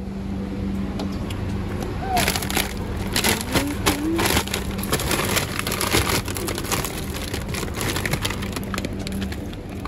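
Plastic bags of frozen king crab legs crinkling and crackling as they are rummaged through and shifted in a freezer case. The crackling grows dense about two seconds in, over a steady low hum.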